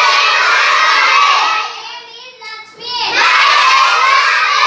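A class of young schoolchildren shouting a phrase together in unison, twice, with a single voice leading in between: a group repeat-after-me recitation, here of Manipuri phrases.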